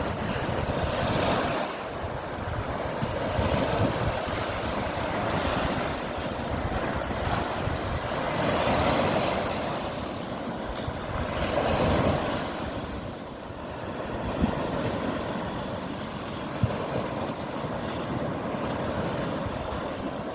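Sea waves breaking and washing up on a beach, the surf swelling and fading every few seconds, with wind buffeting the microphone.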